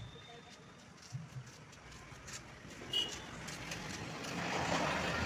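A sharp click about three seconds in, then a vehicle's noisy running sound that swells over the last two seconds.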